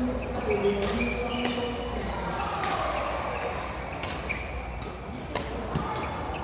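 Badminton rackets hitting a shuttlecock in a rally, several sharp hits about a second apart, with short squeaks of court shoes on the mat between them.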